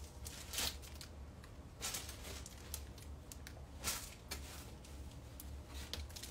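Faint rustling and handling noise, a few short scuffs a second or two apart, over a low steady hum.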